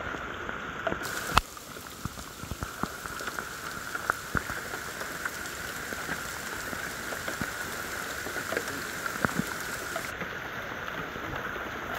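Rain falling on mangrove foliage and mud: a steady patter with scattered louder drops. One sharp click about a second and a half in.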